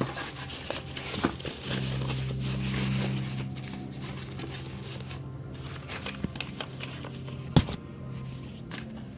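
Packaging being handled: plastic and cardboard crinkling and rustling with scattered clicks and knocks, one sharp knock about three quarters of the way through, over a steady low hum.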